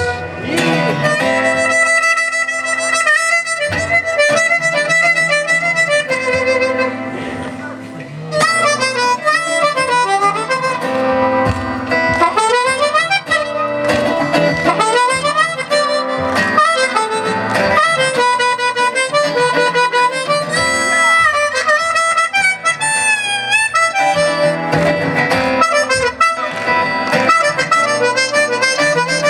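Instrumental break in a live song: a lead melody with sliding, bending notes over a steady strummed rhythm.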